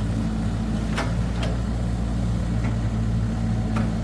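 Diesel engine running steadily, with a few brief sharp clicks or squeaks over it.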